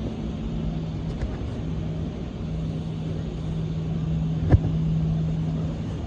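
A motor or engine drone: a low rumble with a steady hum that drops out briefly a couple of times. A single sharp click comes about four and a half seconds in.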